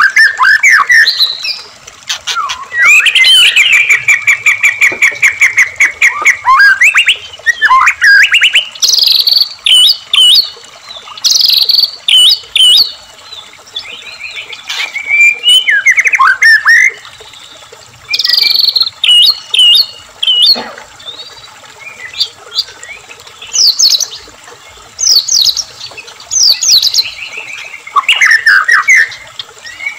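White-rumped shama (murai batu) singing loud, varied song. Clear whistles slide up and down, and there are fast rattling trills, including a long rattle a few seconds in, delivered in bursts with short pauses between phrases.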